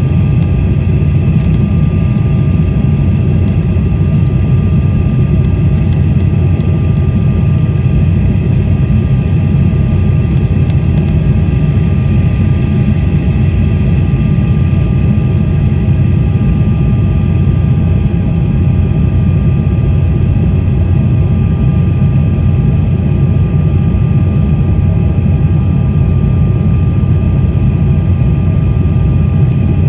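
Steady roar of an Embraer E190's GE CF34-10E turbofans and rushing air, heard from inside the passenger cabin during the climb after takeoff, with a faint steady whine over the low rumble.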